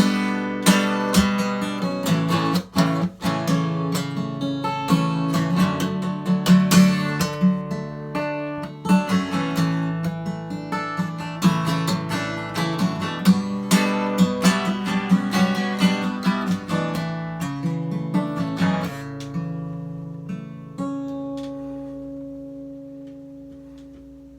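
Acoustic guitar strummed through an instrumental break of a song, with chords at a steady pulse. Some 19 seconds in the strumming thins out, and the last chords are left ringing and slowly fade away.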